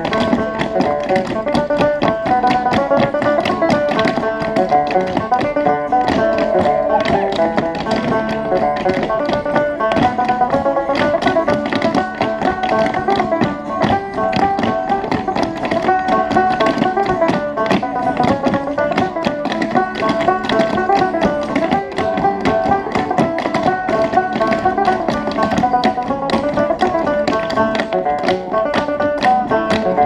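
Clog dancers' shoes tapping fast, sharp rhythms in unison on a dance board, over a lively tune played on a plucked string instrument.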